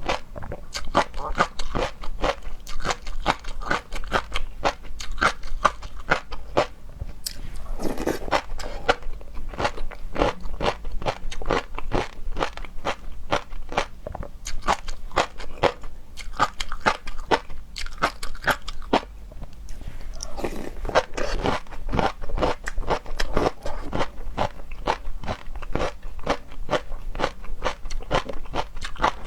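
Close-miked chewing and biting of seafood, a continuous run of crunchy, wet mouth clicks, with a few softer squelchy stretches in between.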